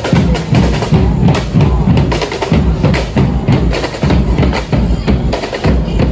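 Music driven by loud, rapid drumming and percussion, with a heavy bass drum.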